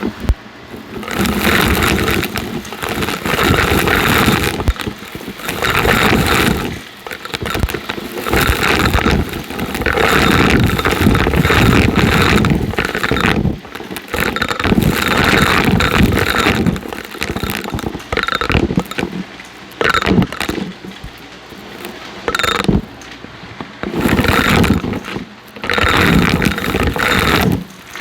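Shark NV351 upright vacuum cleaner running and sucking up crunchy debris with a dense crackling. It swells loud and drops back repeatedly, every few seconds.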